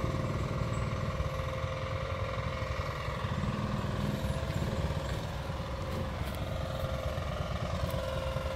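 Rice combine harvester's engine running steadily, a constant low rumble with a faint steady hum above it.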